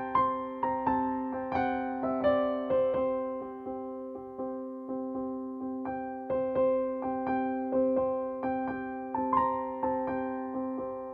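Background music: a gentle electric piano or keyboard melody, notes struck about two or three a second over sustained chords.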